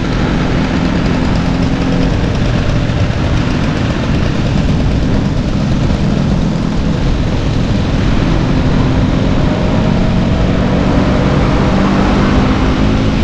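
Vintage Vespa scooter engine running under way, with steady road and wind noise.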